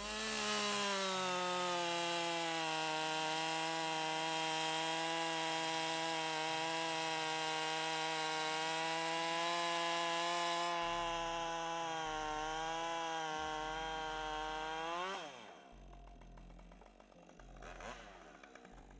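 Husqvarna 545 two-stroke chainsaw at full throttle cutting through a log, making a test cut with a freshly hand-filed round-file chain that the owner judges "not perfect, but not bad". The engine note holds steady under load with slight dips. About fifteen seconds in, it revs up briefly as the chain comes free, then the throttle is released and the engine winds down to idle.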